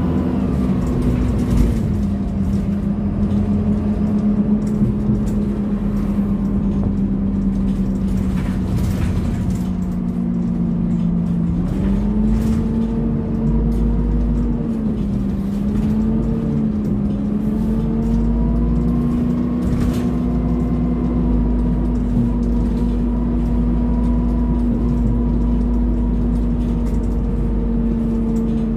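Dennis Dart Plaxton Pointer 2 bus heard from the saloon while it runs: the engine with a constant drone from the cooling fan, which the owner calls 'hoovering' on a hot day, over a low road rumble. The hum's pitch drops slightly about a second and a half in, rises again around twelve seconds, and wavers briefly a few seconds later.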